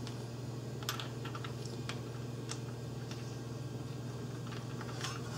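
Scattered light clicks and taps of small parts and tools being handled, over a steady low hum.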